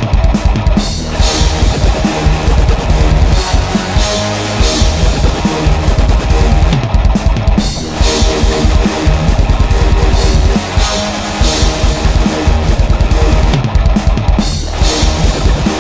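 Loud hardcore electronic dance music with a fast, pounding kick drum under a heavy, distorted layer. The beat drops out briefly about a second in, again near eight seconds, and near the end.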